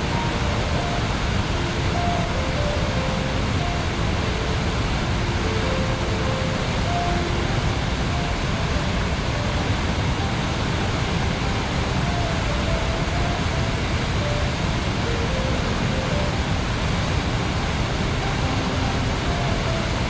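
Steady rush of white water pouring over the rocks of a wide river cascade, with a soft, slow melody of single notes faintly over it.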